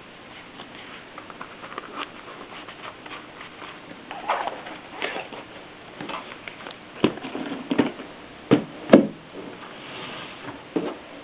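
Mechanical clicks and clacks from a 1950s Olympia manual typewriter being worked by hand, irregular and spaced out, with several louder knocks about seven to nine seconds in.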